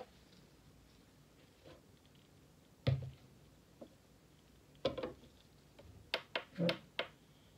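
A few sharp knocks and clinks as a plastic mixing bowl is lifted off a digital scale and a glass beaker is set down on it: one knock about three seconds in, two around five seconds, then a quick run of four near the end.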